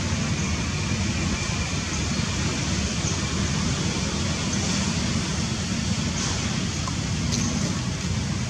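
Steady low outdoor rumble with a fainter even hiss above it, holding a constant level throughout.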